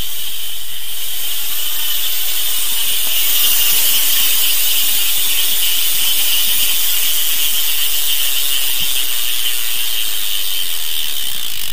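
Bicycle rear hub with six pawls freewheeling, its ratchet clicking so fast it blurs into a loud, steady, high buzz as the wheel spins while coasting; it stops near the end.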